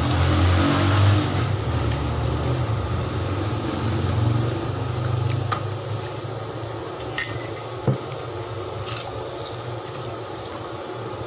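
A low, steady rumble that eases off after about five seconds, with two sharp clinks of a metal spoon against a plate around seven to eight seconds in.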